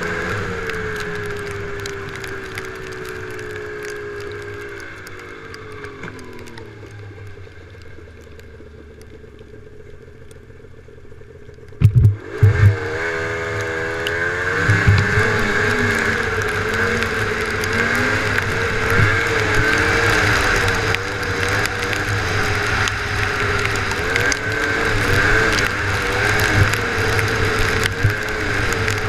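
Snowmobile engine easing off with falling pitch and dropping to a low, quieter run, then two or three loud thumps about twelve seconds in. After the thumps it revs up and runs at speed with a wavering pitch to the end.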